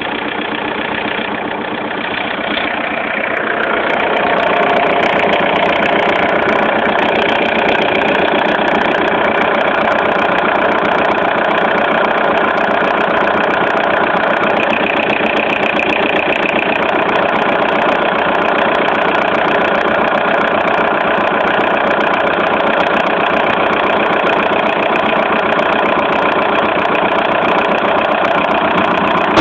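Volkswagen Golf IV TDI's four-cylinder turbodiesel running steadily, getting louder about four seconds in and then holding.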